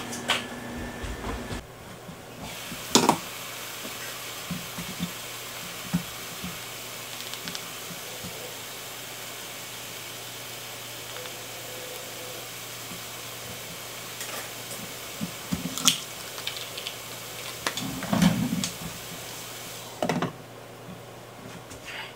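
Ground beef and onions sizzling in a frying pan, a steady hiss, with a few sharp knocks of cookware, the loudest about three seconds in and more near the end.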